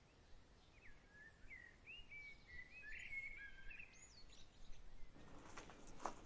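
Faint bird chirps: a quick series of short, curving calls over low ambient noise. About five seconds in the background shifts and a few soft knocks are heard.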